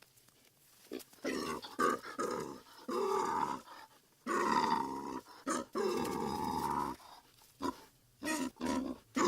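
An animal calling in a series of short pitched calls, the longest and loudest lasting about a second, just before the middle.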